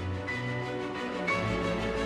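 Background music: held chords over a low bass line, changing chord a little over a second in.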